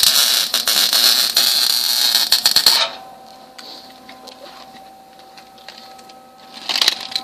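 Wire-feed welding arc crackling loudly for nearly three seconds, then stopping; a short second burst of arc crackle comes near the end. Between the welds a steady hum from the welding machine.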